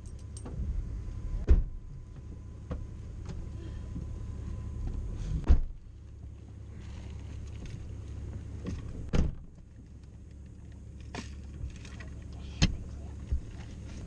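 Car doors opening and shutting as people climb into a parked car, with four loud thuds and several lighter clicks over a low steady rumble.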